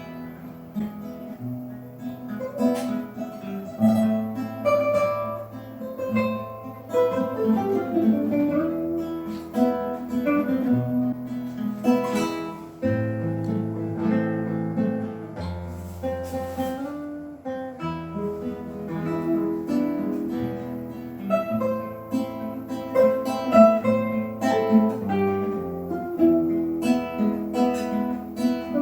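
Acoustic guitar playing an instrumental passage of a traditional song, plucked and strummed notes over a moving bass line.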